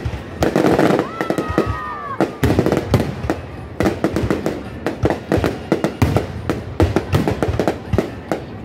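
Fireworks display with aerial shells bursting overhead in rapid succession: a dense run of sharp bangs and crackles.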